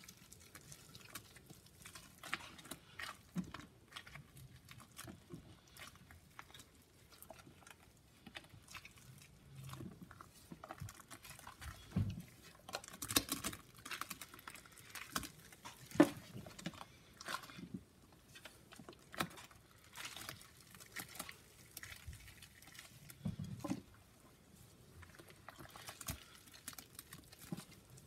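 Gloved hands squeezing and crumbling lumps of wet Comet scouring powder in Pine-Sol, making a thick paste: irregular wet squishing and small crunching crackles, with one louder click about sixteen seconds in.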